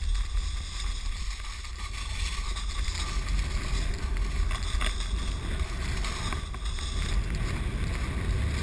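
Snowboard sliding and carving through snow at speed, a steady rushing hiss, with wind rumbling on the microphone of a pole-held action camera.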